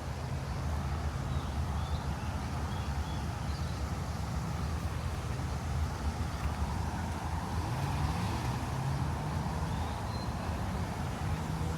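Low, steady rumble of motor-vehicle engines, with one engine rising in pitch about eight seconds in, under a few faint high bird chirps.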